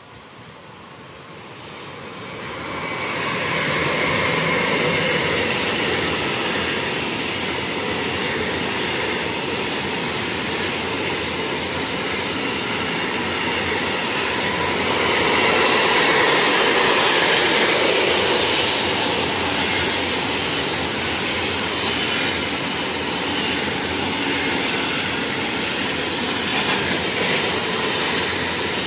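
An intermodal freight train hauled by an electric locomotive passes through a station. The wagons carry lorry semi-trailers. The rumble builds over the first few seconds as the train arrives, then holds steady while the wagons roll past.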